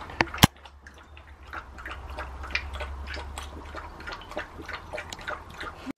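Border terrier puppy lapping water from a bowl: a quick, irregular run of short wet laps and clicks. Two sharp knocks come just at the start, the second the loudest.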